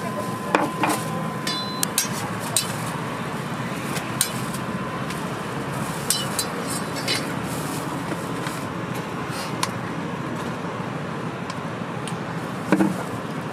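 Steady street background noise with scattered light clicks and taps of a spoon and spatula on a glass Nutella jar and a crepe griddle while a crepe is spread; a louder knock comes near the end.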